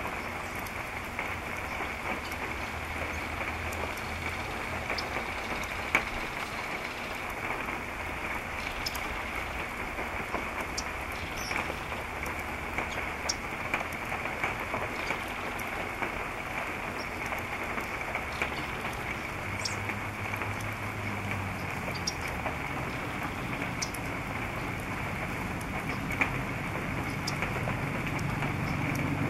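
Steady rain with scattered drops ticking close by. A low hum comes in partway through and grows louder near the end.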